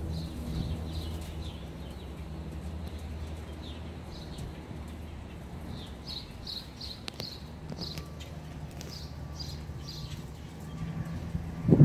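Small birds chirping over and over in short high notes, over a steady low hum. A sudden loud rumble of handling or wind on the microphone starts just at the end.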